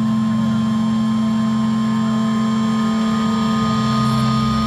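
Heavy metal band's distorted electric guitars and bass holding one loud, sustained chord as a steady drone.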